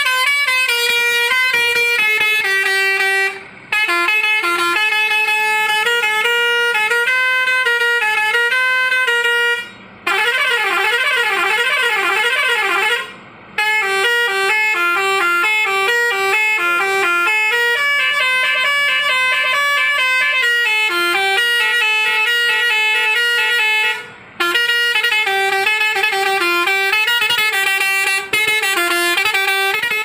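Truck musical horn worked from a handheld multi-button controller, playing a string of short electronic tunes of stepped notes with brief breaks between them. In the middle, one tune gives way to a warbling siren-like tone that swings up and down for about three seconds.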